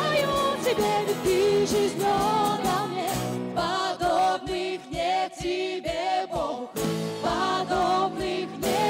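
Live worship band playing a song, with women singing into microphones over drums, electric guitars and keyboards on a steady beat. About three and a half seconds in, the low instruments drop out, leaving the voices and drum hits, and the full band comes back in about two seconds before the end.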